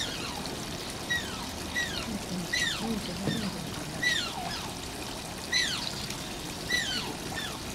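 Asian small-clawed otter giving a string of short, high-pitched squeaky 'kyun kyun' cries, each sliding quickly downward in pitch, about one every half second to a second.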